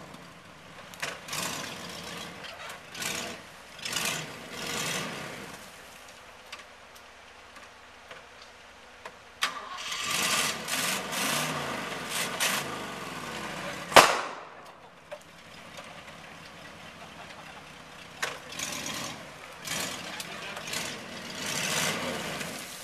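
1976 Jeep CJ-5's engine revving in repeated bursts, each a few seconds long, as it strains to crawl over a fallen log. One sharp crack stands out about fourteen seconds in.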